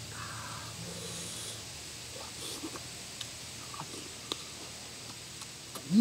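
Close-up eating sounds: scattered small clicks, smacks and mouth noises as a man handles and chews cooked crab, dipping it in chili sauce. Near the end a loud voiced sound from him begins, rising and then falling in pitch.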